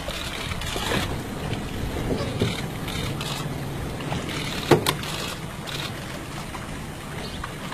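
Steady low rumble with wind noise on the microphone, and one sharp knock a little past the middle.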